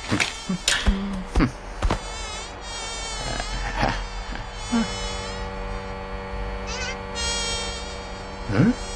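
Housefly buzzing sound effect, a steady buzz that wavers in pitch, with a few sharp knocks or smacks in the first two seconds.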